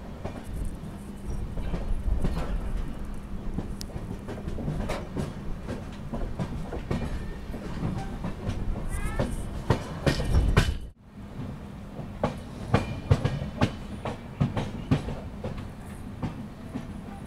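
Passenger train wheels clacking irregularly over rail joints above a steady low hum, heard from on board a moving express train. The sound cuts out for an instant about two-thirds of the way through.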